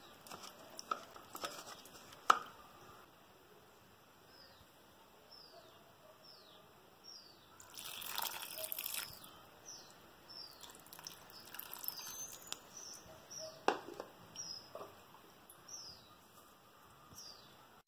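Tamarind water poured into a pan of curry: a brief splashing pour about eight seconds in. A small bird chirps faintly again and again in short falling notes, about once a second.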